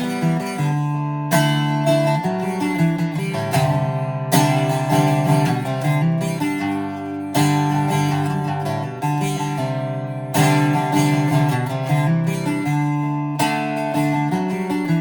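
Greco D-70 dreadnought acoustic guitar being played: a strong chord roughly every three seconds, each left to ring while single notes are picked between them.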